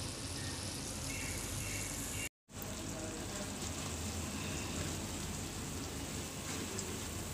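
Mung and mash dal fritters deep-frying in hot oil in a kadhai, a steady sizzle. The sound drops out for a moment just after two seconds in, then the sizzle resumes.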